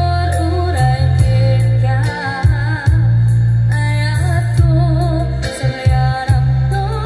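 A woman singing into a microphone with a wavering vibrato, over live electronic keyboard accompaniment with a loud, steady bass line.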